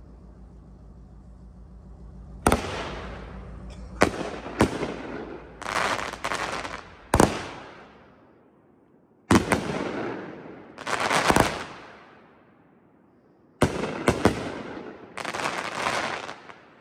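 500-gram Full Blown fireworks cake firing in three volleys. Each volley is a few sharp bangs as the shells burst, followed by the dense crackle of gold crackling stars.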